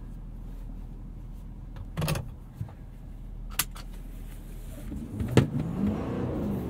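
In-cabin sound of a 2017 Ford F-250 Super Duty with the 6.7-litre Power Stroke V8 turbodiesel, driving through a tight turn. A steady low hum is broken by a few sharp clicks, and a tone rises and falls near the end.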